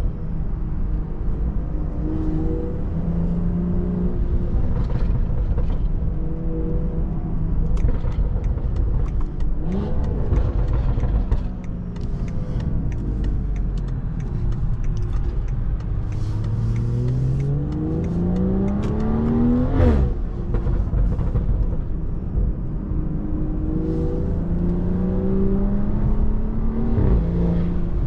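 Tuned BMW 540i's turbocharged straight-six, with catback exhaust and downpipe, pulling hard through the gears. Its pitch climbs and drops sharply at each upshift, about 10 s in, about 20 s in and again near the end.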